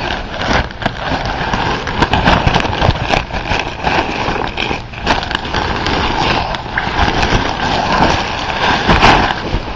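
Clear plastic wrapping crinkling and rustling as a fabric dog-agility tunnel is handled, a continuous crackle full of sharp crackles.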